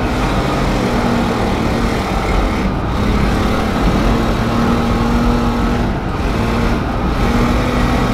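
Car engine heard from inside the cabin, pulling at fairly steady revs while the car slides on an ice track, with brief lulls about three, six and seven seconds in.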